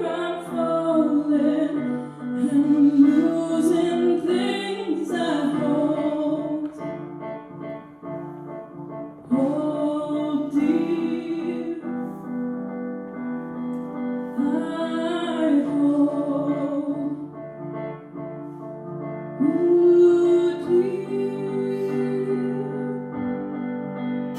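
A slow song: a woman's voice sings phrases with long held notes over sustained keyboard chords.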